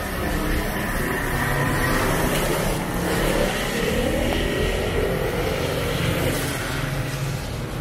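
Street traffic passing close by: vehicle engines running, with a steady wash of tyre and road noise and engine notes that shift in pitch.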